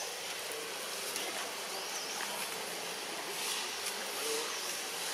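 Outdoor insect buzzing, steady and high, with short high chirps repeating every second or so.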